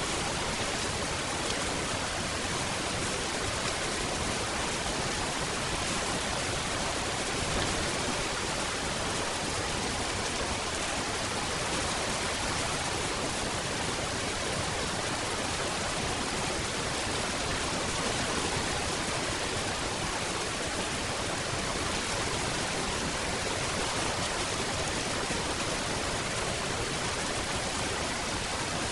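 Steady rain falling, an even, unbroken hiss with no separate drops or thunder standing out.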